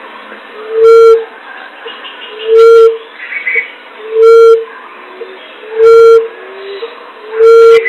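Common emerald dove call: a low hoot repeated five times, about one every one and a half to two seconds, loud and distorted.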